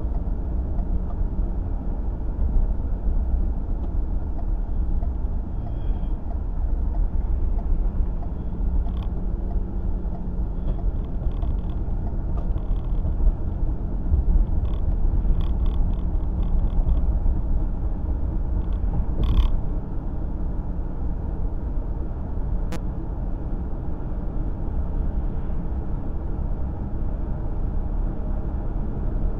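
Road noise inside a moving car: a steady low rumble of engine and tyres, with light creaks and rattles from the interior now and then, and a short knock about two-thirds of the way through.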